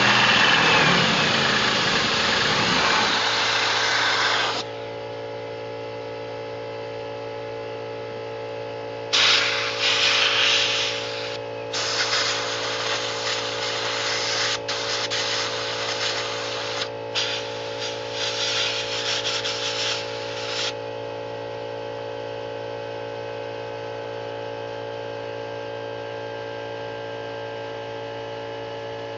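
A corded half-inch hammer drill with a high-speed-steel step bit cuts through metal under a blast of compressed air, then stops about four and a half seconds in. After that an air compressor hums steadily, and an air blowgun gives four long hissing blasts into the hole between about nine and twenty-one seconds in.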